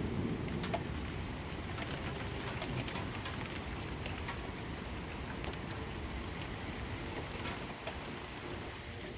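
Rain falling, with scattered individual drops ticking on a hard surface, over a low rumble of distant thunder that slowly dies away.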